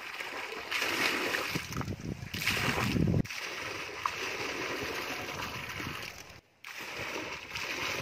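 A stream of water falling into a pool of water, splashing and churning steadily. It drops in level suddenly about three seconds in and breaks off briefly near six and a half seconds.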